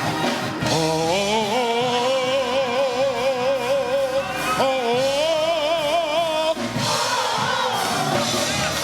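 Gospel singing with musical accompaniment: a singer holds two long notes with wide vibrato, the first about a second in and the second just before the halfway point.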